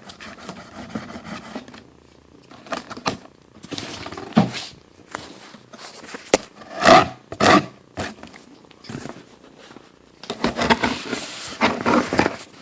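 A cardboard shipping box being opened by hand: packing tape is torn in several short, loud rips, with cardboard scraping and rustling between them and a busier stretch of rustling near the end.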